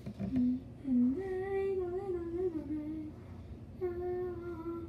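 A child singing a wordless tune to themselves: two short notes, then longer held notes stepping gently up and down in pitch.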